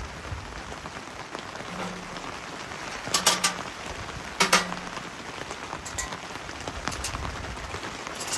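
Steady rain on tent fabric, with a few louder sharp taps.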